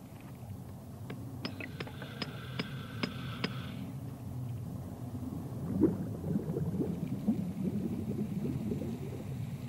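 Underwater bubbling and gurgling of air and water, louder from about five seconds in with a strong gurgle near six seconds. Early on, a run of about six sharp ticks, roughly two a second, sits over a faint steady high tone.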